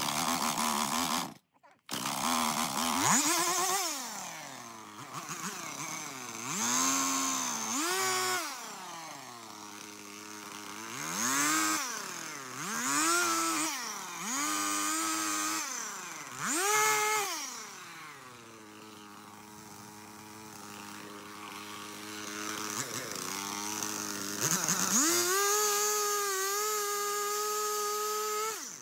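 Stihl two-stroke chainsaw revving up and down in repeated swells. Near the end it settles into a steady, loud full-throttle run.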